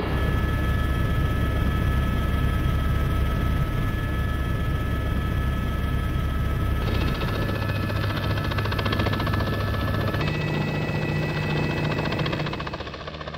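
Helicopter running overhead: a steady low rotor and engine drone with thin whining tones above it. The sound shifts abruptly about 7 and 10 seconds in and gets quieter near the end.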